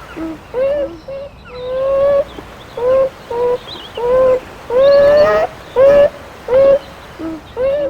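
Animal calls repeating about twice a second, short rising-then-falling notes with a few held longer, some at a lower pitch, as if from more than one animal.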